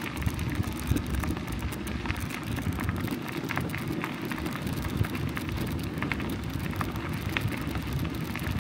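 Bicycle tyres rolling over a gravel path: a steady crunching crackle of many small clicks over a low rumble.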